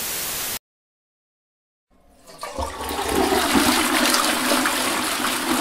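Static hiss cuts off abruptly about half a second in. After a second and a half of silence, a flushometer toilet flushes: a rush of water that swells over about a second and keeps running.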